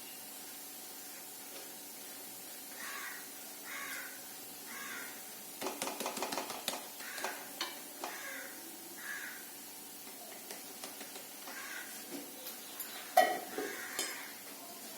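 Cooking utensils clinking and scraping against a pan, with a rapid run of clicks midway and one sharp knock near the end. A crow caws repeatedly in the background, about one call a second.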